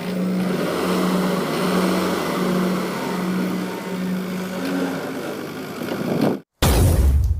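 Backhoe loader running, with a low beep repeating about every three-quarters of a second over the engine noise. Near the end the sound cuts out for a moment and a louder, deep engine rumble follows.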